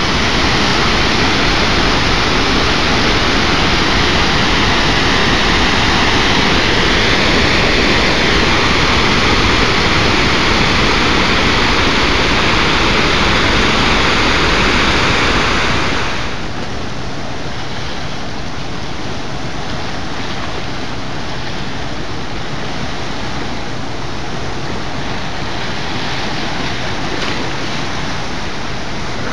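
Floodwater of the St. Croix River pouring over the top of a dam in a steady, heavy rush. About sixteen seconds in, the sound drops to a lower, duller rush of flooded rapids churning below the dam.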